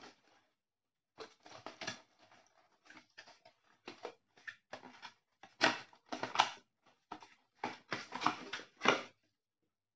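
Cardboard packaging being handled and pulled apart: flaps rubbing and scraping in short irregular rustles, louder in the second half.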